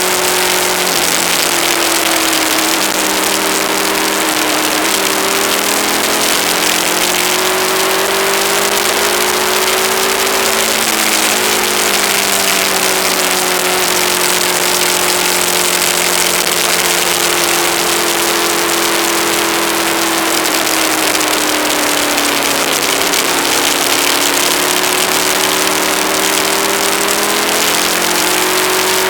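Aprilia ETV1000 Caponord's V-twin engine running on the road under heavy wind rush, its pitch drifting slowly up and down with the throttle.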